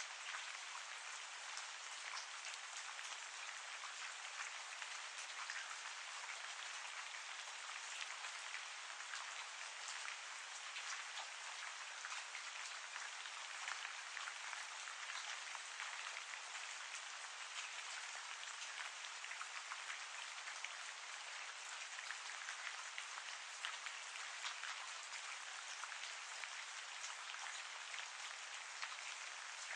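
Steady rain falling, a dense even hiss of many fine drop ticks.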